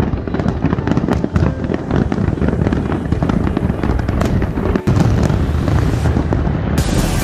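Fireworks display going off in a dense, continuous barrage of bangs and crackles. Near the end, electronic background music cuts in over it.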